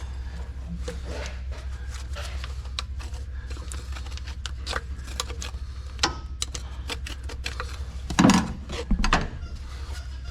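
Scattered metal clicks and knocks from hand-tool work on a tractor transmission, over a steady low hum, with a louder clank about eight seconds in and another about a second later.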